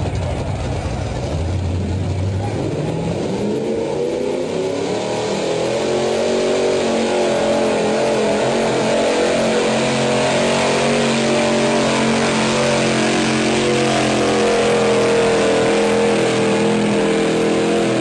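Pickup truck's engine working hard under load as it pulls a weight-transfer sled. The revs climb over the first few seconds, then hold high and fairly steady, wavering slightly.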